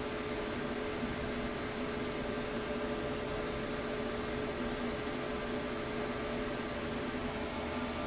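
Steady, even hiss with a constant hum of several tones under it, and one faint tick about three seconds in; no thunder is heard.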